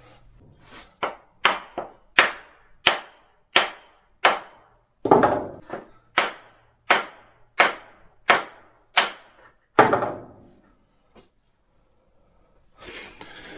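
A run of about fifteen sharp knocks, roughly one every half second to second, as the new wooden handle is rapped to drive the rounding hammer's head down and seat it tightly. The knocking stops about ten seconds in.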